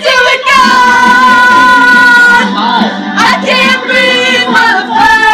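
A song with a singing voice, loud, including one long held note from about half a second in that lasts about two seconds.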